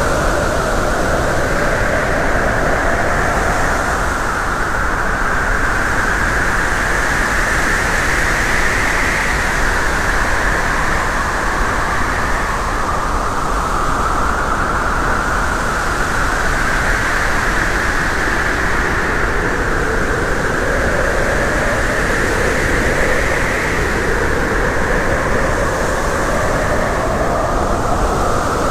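Steady, loud rushing noise of a vehicle on the move, with a hiss that slowly drifts up and down in pitch.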